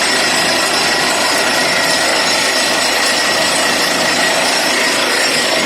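Borewell drilling rig running: a steady, loud, dense mechanical noise with a constant high whine through it, unchanging throughout.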